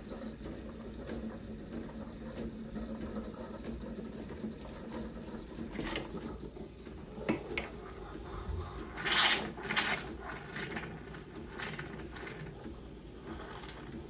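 Breville espresso machine running, its vibratory pump giving a steady buzzing hum. A couple of light knocks about six and seven seconds in as the glass milk mug is handled, then short loud hisses of steam from the steam wand a little after nine seconds in.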